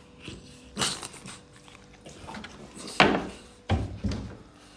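Handling noise: a few sharp knocks and clatters, the loudest about three seconds in, with two duller bumps soon after.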